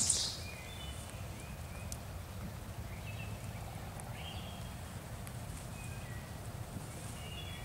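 Quiet woodland ambience: faint, short bird calls every second or so over a low, steady rumble.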